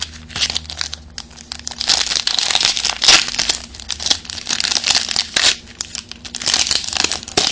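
A Yu-Gi-Oh Battle Pack booster's foil wrapper being crinkled and torn open by hand: quiet at first, then dense crinkling and tearing from about two seconds in, lasting most of the rest.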